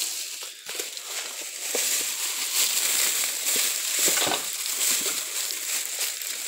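Crinkling and rustling of plastic close to the microphone, with many small clicks and a louder bump about four seconds in.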